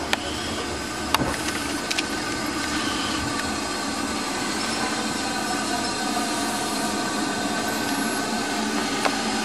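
Gresley V2 three-cylinder steam locomotive drawing its train slowly past at close range. The running noise is steady, with a few sharp clicks and some thin, squealing tones from the wheels and motion.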